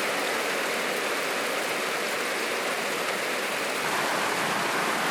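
Steady rainfall, an even hiss of rain coming down without a break.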